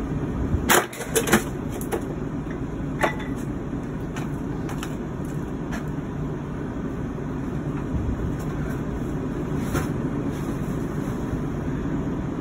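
Steady low rumble like an idling engine or traffic, with a few sharp knocks and clatters of objects being handled, a cluster about a second in and another near three seconds.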